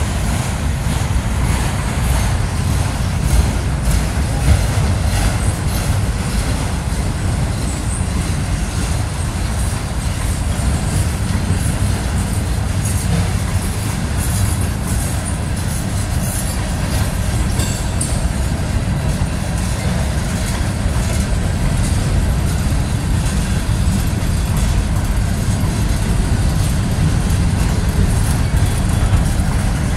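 Freight train cars rolling past at close range: a steady low rumble of steel wheels on rail, with scattered clicks and clatter from the wheels and couplers.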